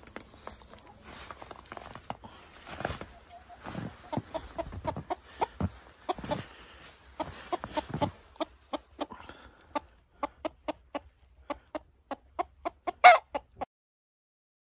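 Chickens clucking: scattered clucks at first, then a steady run of short clucks about three a second, with one much louder call just before the sound cuts off suddenly.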